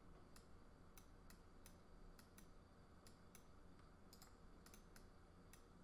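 Near silence broken by faint, irregular computer mouse clicks, a couple every second.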